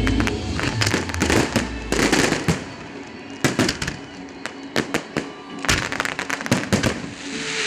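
Fireworks display: a string of sharp bangs and pops at uneven intervals, thickest at the start and again near the end.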